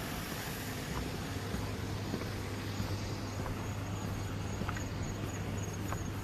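Steady outdoor night ambience: a constant low hum under a noisy wash, with a faint, rapid high-pitched pulsing that grows clearer about halfway through and a few faint clicks.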